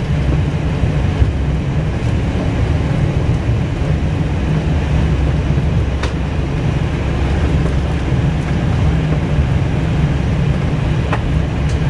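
Airliner accelerating down the runway on its takeoff roll, heard from the cockpit: a loud, steady low rumble of the engines and wheels on the runway. Two faint clicks, about halfway through and near the end.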